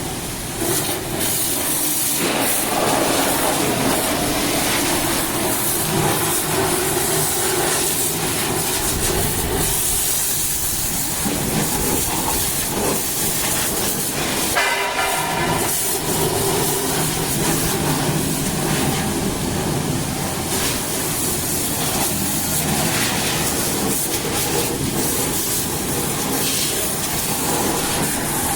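High-pressure water jet hissing steadily against the backhoe loader, over the low hum of a running motor. About halfway through, a short higher-pitched tone sounds for about a second.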